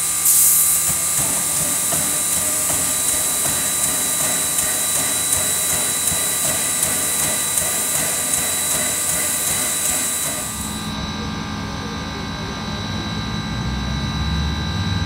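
Steam locomotive No. 1702, a 2-8-0, venting steam at a standstill: a loud, steady hiss that cuts off about eleven seconds in, leaving a low rumble.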